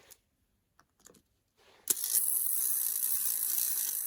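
Wind-up Bakugan toy's spring-driven mechanism whirring steadily after release, starting suddenly about two seconds in, after a few faint clicks.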